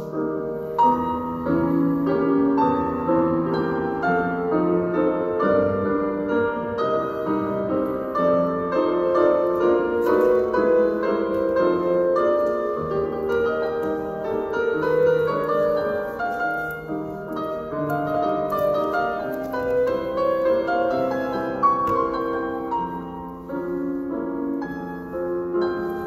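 Solo piano music, a continuous flow of notes resuming after a brief pause about a second in, played as accompaniment for ballet barre exercises.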